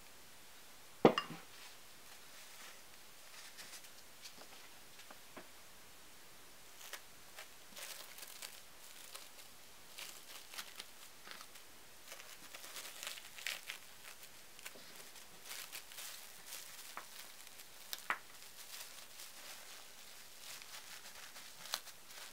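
Hands assembling and pressing pressed mackerel sushi: a sharp knock about a second in, then light scattered rustles and small taps, with another knock near the end.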